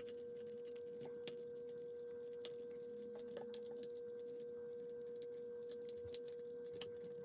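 A faint, steady single-pitched tone throughout, with faint scattered clicks of a Phillips screwdriver turning screws out of a plastic case.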